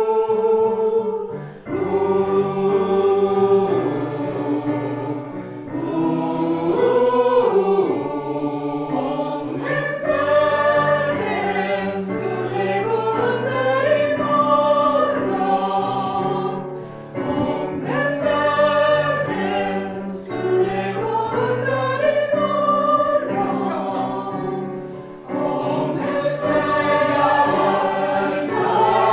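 Mixed amateur choir singing together in sung phrases, with keyboard accompaniment holding low chords underneath.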